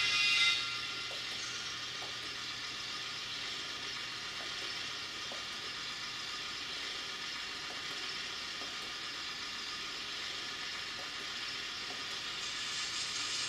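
Model tamping machine running slowly along the model railway track: a steady hiss of its small motor and wheels, with faint light ticks as it rolls over the rail.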